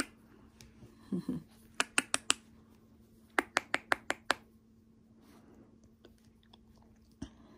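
Quick, sharp clicks in runs of four to six, made by a person to draw the attention of a miniature schnauzer puppy, a sound the puppy is said to like.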